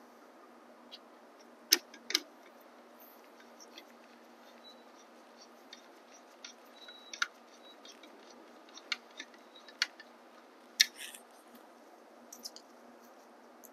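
Scattered small clicks and ticks of gloved hands and a small tool working tiny screws into a plastic motor cover, with a few sharper clicks about two seconds in and again near the end.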